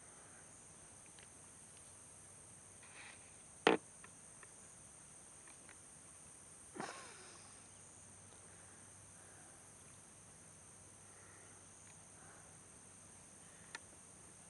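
Steady high-pitched drone of insects over quiet outdoor background, broken by a sharp knock about four seconds in and a softer knock near seven seconds.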